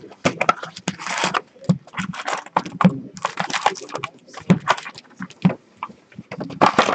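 A cardboard box of 2015-16 Upper Deck MVP hockey cards being opened and its wrapped card packs pulled out and set down in stacks on the table: a busy run of quick crinkles, rustles and taps.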